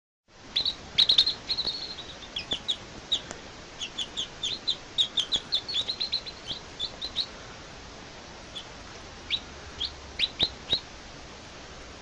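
Baby chicks peeping: many short, high peeps, each falling in pitch, coming thick and fast for the first several seconds and then thinning to a few scattered peeps.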